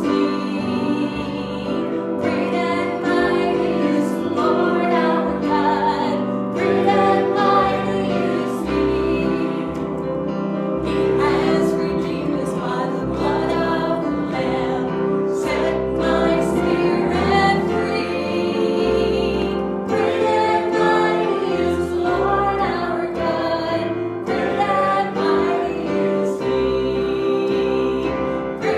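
A choir or congregation singing a hymn, with held chords and a bass line beneath the voices.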